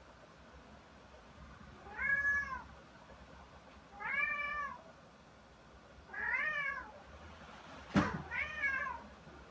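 A cat meowing four times, about two seconds apart, each call rising and falling in pitch. A sharp click comes just before the last meow.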